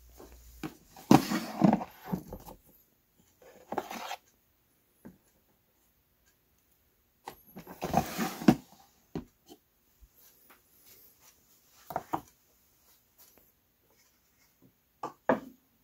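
Handling noise from a clear plastic storage drawer: it slides open and shut and parts clatter inside it, in a few short bursts of knocks and scrapes. The loudest come about a second in and again about eight seconds in.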